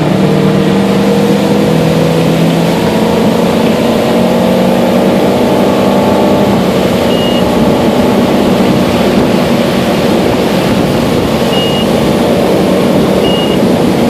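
Nautique ski boat's inboard engine pulling away under load, its pitch rising over the first few seconds, then running loud and steady at towing speed. Three short high beeps sound in the second half.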